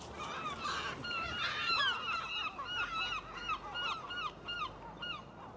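Several seagulls calling, a rapid run of short repeated calls overlapping one another, thinning out near the end.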